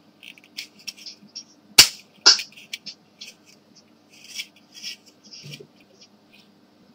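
Hard plastic parts of a Xerox toner cartridge clicking in the hands as the chip holder bar is snapped onto the cartridge's rear panel: two sharp snaps about two seconds in, half a second apart, among lighter taps and handling clicks.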